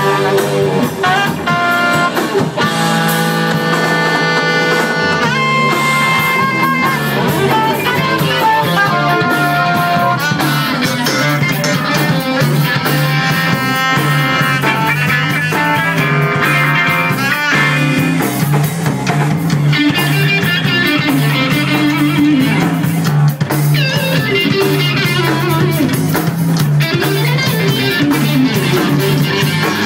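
Live band playing a jazz-funk instrumental: electric guitar playing melodic lead lines over drum kit and bass.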